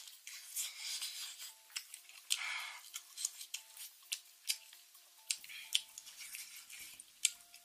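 Close-miked eating sounds: wet chewing and mouth clicks from a mouthful of saucy braised meat, with sharp clicks of chopsticks picking at the plate. Soft background music plays underneath.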